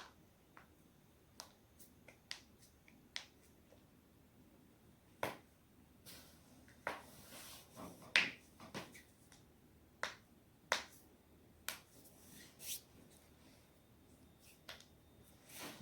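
Neck and back joints cracking as a person twists them: a long series of sharp pops, some close together in quick runs, the loudest about eight and eleven seconds in, with brief soft rustles of movement between them.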